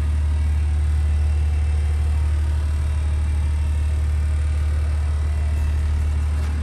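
Steady low rumble of the box truck's engine, heard from inside the cargo box.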